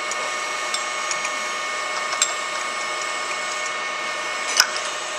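Light metallic clicks and ticks as a face mill is turned by hand and drops free of the milling machine spindle's drawbar, the sharpest click coming near the end, over a steady machine-shop hum.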